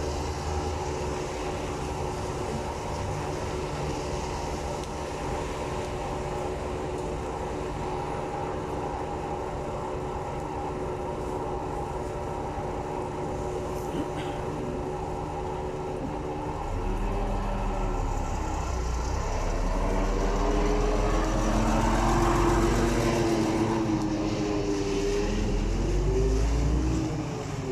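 City bus engine idling with a steady hum, then revving up and down through several rises in pitch as the bus pulls away, starting about 17 seconds in and fading near the end.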